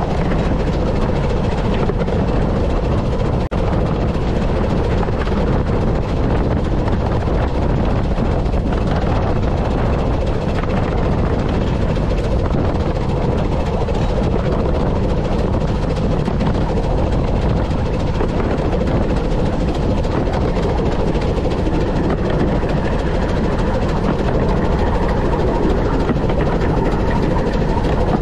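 15-inch gauge steam locomotive River Mite and its train running along the line: a steady rumble of the engine and wheels on the rails.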